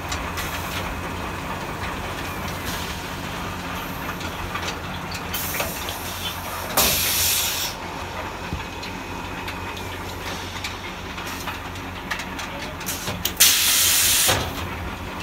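Silage packing machines running with a steady motor drone, broken by short loud bursts of air hiss, one about halfway through and one near the end, with a fainter hiss just before the first.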